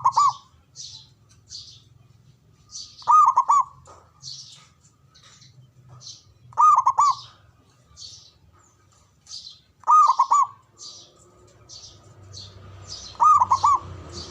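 Zebra dove (perkutut) cooing: five short, quick rolling phrases, about one every three and a half seconds. Between them a smaller bird keeps up faint high chirps, about two a second.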